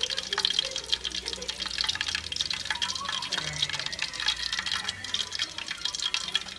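Hot oil in a wok sizzling and crackling steadily around battered chicken feet as they deep-fry, a dense run of small pops.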